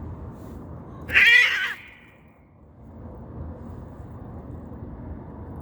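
A hungry cat meows once, loudly, about a second in.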